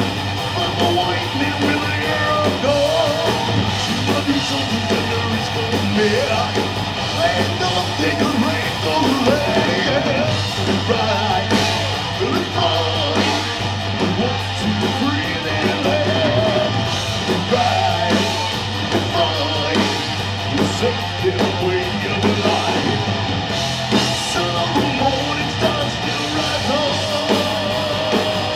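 Live metal band playing: a singer's vocal over electric guitars, bass guitar and drum kit, steady and loud with no breaks.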